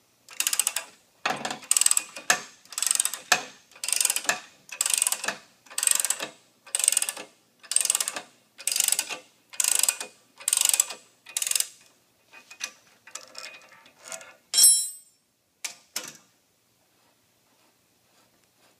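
Ratchet wrench swung back and forth in about a dozen even clicking strokes, a little under one a second, turning the jacking nut of a bearing puller to draw the outer bearing race from a Toro reel-mower basket roller. Weaker, irregular clicks follow, with one sharp, louder snap about fifteen seconds in.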